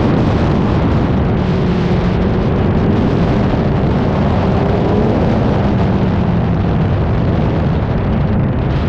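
Loud, continuous rumble and wind buffeting on a moving action camera, with a faint engine note that rises and falls.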